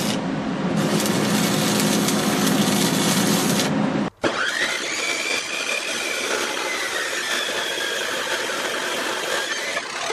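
Electric arc welding on a steel railing: a steady crackle and sizzle over a low electrical hum. After a sudden break about four seconds in, an abrasive chop saw spins up with a high whine and grinds through a steel bar, the whine sagging slowly in pitch as the blade takes the load.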